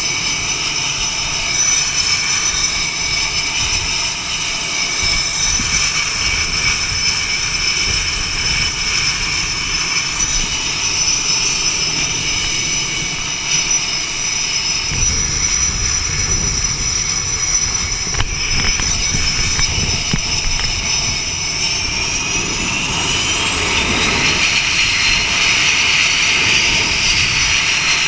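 F/A-18 jet engines whining steadily at idle. About 22 seconds in, the whine rises in pitch and grows louder as the engines spool up.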